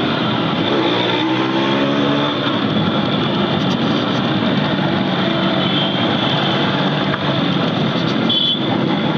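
Motorcycle engine running through city traffic, its note rising once as it accelerates about a second in, over steady wind and traffic noise.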